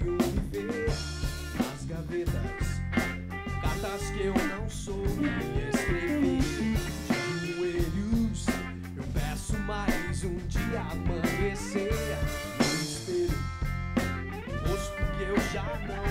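Live rock band playing: electric guitar over bass and drum kit.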